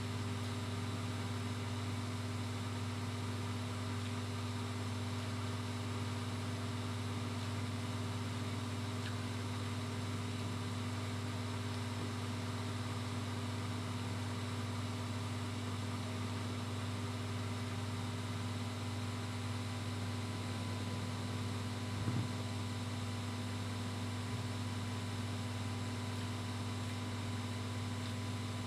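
Steady low electrical or motor hum, with one faint click about 22 seconds in.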